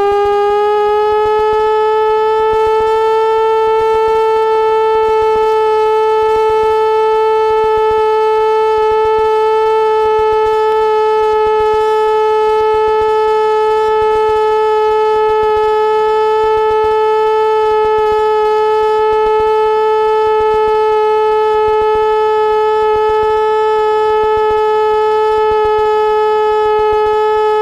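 Piper PA-28 Cherokee's engine and propeller running steadily, heard from the cockpit as a loud, even drone with a stack of overtones; the pitch rises slightly over the first few seconds, then holds.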